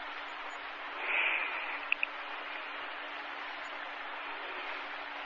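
Steady hiss and a low hum from an old 1964 recording, with a short swell of hiss about a second in and two faint clicks just after.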